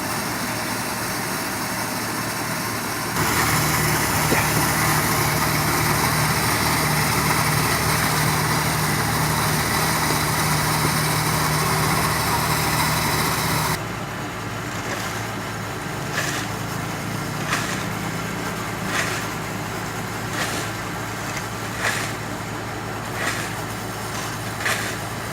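Heavy diesel construction machinery running steadily, with the engine sound changing abruptly twice. In the latter part, sharp clicks repeat about every second and a half over the engine hum.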